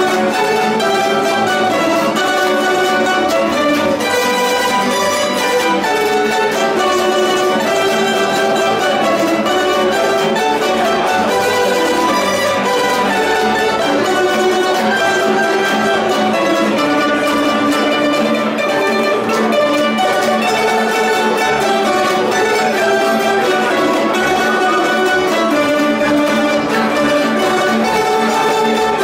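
A tamburica ensemble of small mandolin-like and guitar-shaped plucked string instruments playing a tune together without a break.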